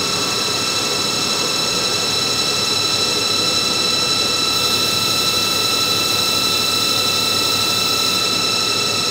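CNC lathe running, its spindle turning while the tool feeds along a polyamide bar in a turning cut. It gives a steady machine hum with several constant high whining tones from the drives, unchanging throughout.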